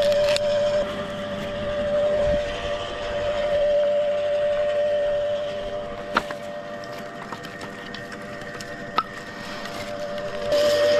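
Wood chipper running with a steady whine, quieter through the middle with two sharp knocks, then louder again near the end.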